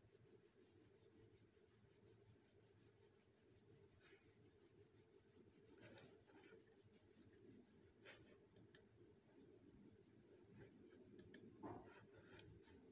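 Near silence: room tone with a faint, steady high-pitched tone and a few faint clicks.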